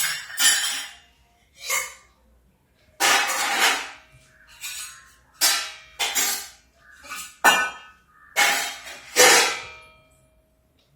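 Dishes and utensils clattering and clinking: about a dozen separate knocks, some leaving a short ring, as they are handled and put down during kitchen cleaning.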